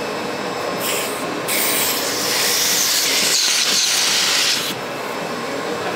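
Hands sliding and pressing a large plastic sheet flat on a CNC router bed, giving a loud hiss that starts about a second and a half in and stops sharply near the end, over a steady machine hum.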